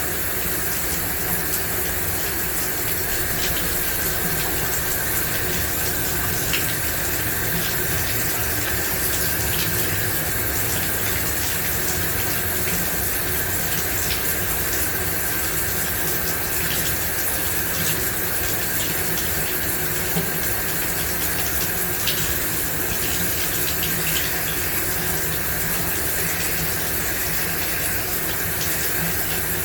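Shower running steadily: a dense, even hiss of water spray falling, with small scattered drips and splashes.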